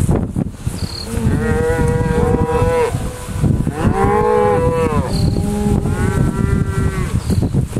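Black Angus cattle mooing: three long moos one after another, the middle one the loudest, over a steady low rumble.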